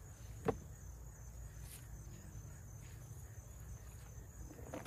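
Crickets chirring steadily in a high thin band over a low steady rumble, with one sharp snip of garden shears cutting an okra pod about half a second in.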